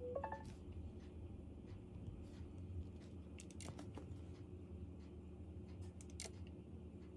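Faint handling of an iPhone XR: a brief electronic chime right at the start as the Face ID scan finishes, then a few light clicks of fingers tapping the glass screen, over low room hum.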